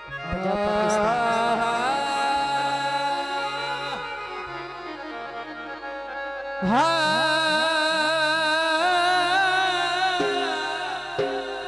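A woman singing a Punjabi folk song through a microphone and PA, with instrumental accompaniment. She holds long, wavering notes in two phrases, the second entering about six and a half seconds in. A few sharp percussive strokes come near the end.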